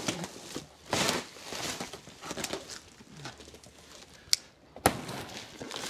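Cardboard boxes being shifted and pulled from a plastic-wrapped pallet: a rustle about a second in, light scuffs and knocks, and two sharp clicks later on.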